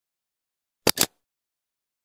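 Mouse-click sound effect: two short clicks in quick succession, with dead silence around them.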